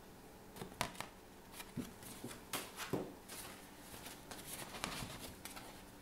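Paper picture cards being handled and swapped by hand: faint rustling with a few light clicks and taps.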